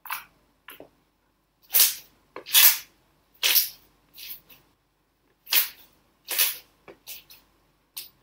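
Thick, stiff slime with pearl powder being kneaded and pressed flat by hand, giving a string of about a dozen short squishing pops, the loudest in the middle.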